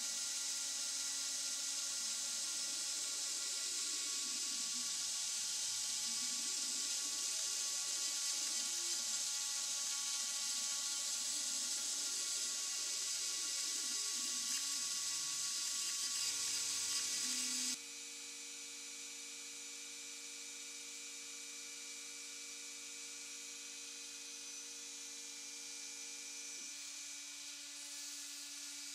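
Dremel-type rotary tool spinning at high speed while its fine bit engraves a block, mixed with the wavering whine of salvaged photocopier stepper motors driving the homemade CNC's axes. About 18 s in, the high-pitched rotary-tool noise drops away sharply, leaving a steadier stepper-motor whine that shifts pitch near the end.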